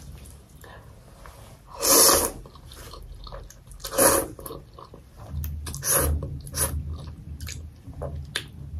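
A person slurping thukpa noodles, two short loud slurps about two and four seconds in, then chewing with small wet clicks and smacks.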